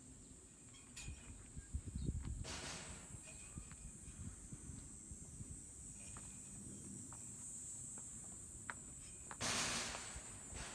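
Steady high-pitched chorus of insects. Two brief hissing bursts come over it, one about two and a half seconds in and a louder one near the end.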